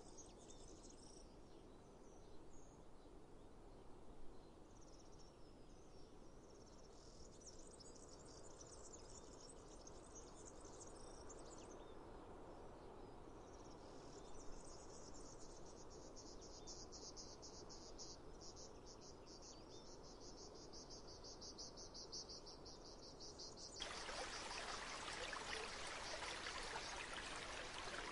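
Faint insects chirping high-pitched over a soft low rumble, settling into a rapid, even pulsing trill. Near the end a steady hiss cuts in suddenly beneath it.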